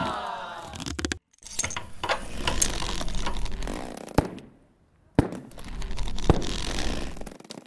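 Sound-effect soundtrack: two swells of dense noise, each a couple of seconds long, with a few sharp clicks. They are broken by a short silence about four and a half seconds in.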